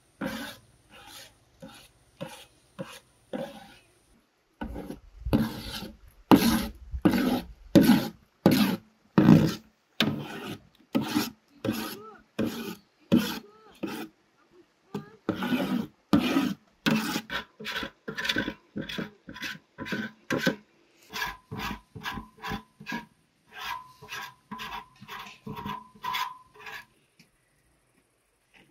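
Long metal ladle stirring thick tomato paste in a large aluminium pot, scraping against the pot in steady strokes about one or two a second, as the paste cooks down over a wood fire. The strokes stop shortly before the end.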